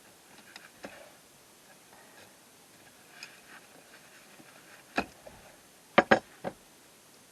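Scattered sharp clicks and knocks from hands and tools working at an electrical box and its wiring, the loudest a single knock about five seconds in and a quick run of three about a second later.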